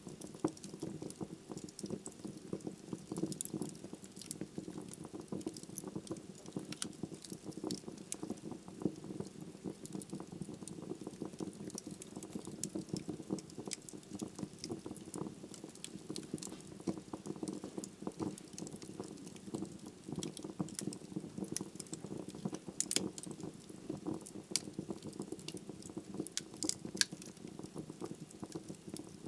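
Wood logs burning in a fireplace, crackling continuously: dense, irregular small snaps over a steady low flame noise, with a few louder pops in the second half.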